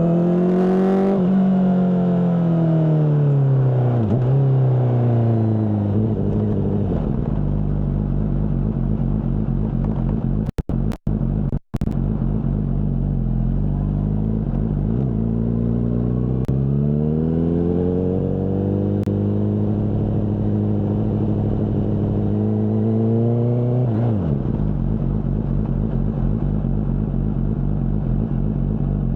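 Honda CBR600RR inline-four engine through its Mivv aftermarket exhaust while riding. The engine note falls as it slows over the first few seconds, holds, then climbs slowly under throttle before dropping sharply near the end. The sound cuts out briefly a few times midway.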